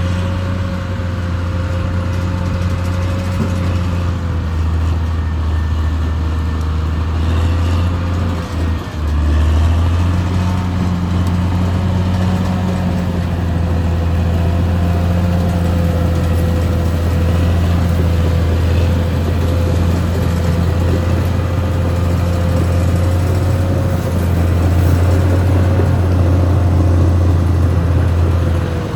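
Caterpillar D6R XL bulldozer's diesel engine running steadily as the machine travels: a low drone with a steady higher tone over it. The sound dips briefly about eight and a half seconds in.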